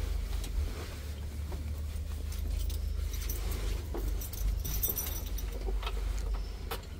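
A bunch of keys jangling and clicking as it is handled and fitted into a bus's ignition, over a low steady hum.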